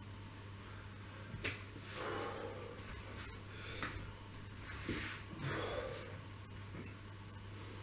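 A person shifting on a foam exercise mat: a few soft taps as the hands are placed on the mat and short breaths as he moves, over a steady low hum.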